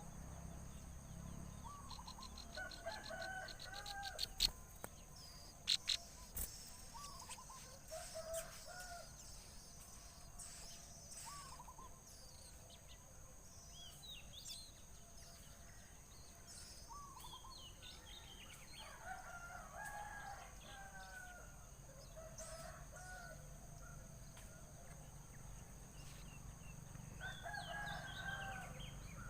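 Birds calling outdoors. A short pitched call repeats every few seconds and thin high chirps come in between. A rapid run of ticks and a few sharp knocks fall in the first several seconds.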